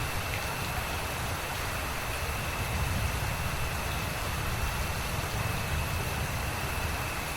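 Steady rain, with a low rumble underneath and a faint, steady high tone.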